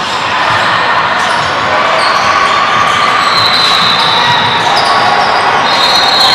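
Live basketball game sounds: the ball dribbled on the court floor, with players' voices and some high squeaks.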